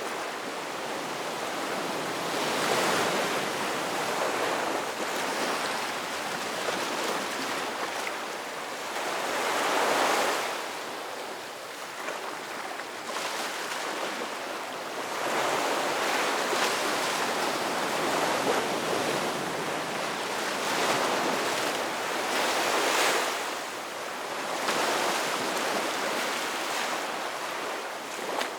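Ocean surf: waves breaking and washing up the beach, a steady hiss that swells and fades every few seconds, with louder breaks about 3, 10 and 23 seconds in.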